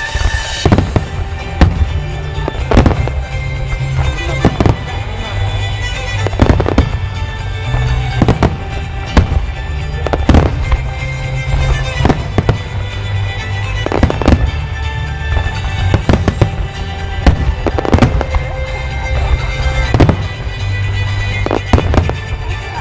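Aerial fireworks shells bursting in quick succession, a sharp bang roughly every second, with music playing throughout.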